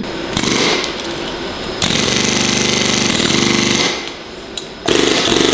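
Pneumatic air hammer with a chisel bit chattering in rapid-fire bursts as it cuts through a rubber snowmobile track. Three runs of hammering, the middle one longest and loudest, with short pauses between.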